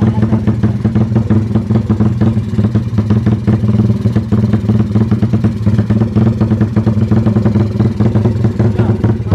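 Honda Tiger's single-cylinder four-stroke engine running through a loud aftermarket Pekajaman exhaust, with a rapid, even beat and no clear revs.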